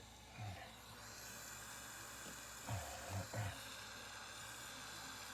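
Steady hiss of a jeweller's soldering torch flame, with a few soft low thumps at the bench.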